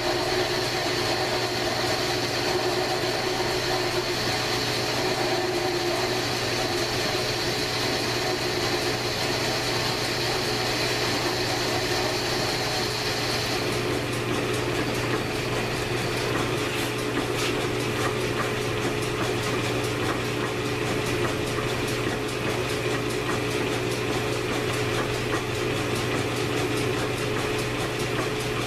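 1942 South Bend lathe running steadily at 475 RPM, turning down an AR-15 bull barrel with a carbide-insert tool fed by hand. A higher hiss over the steady hum stops about halfway through.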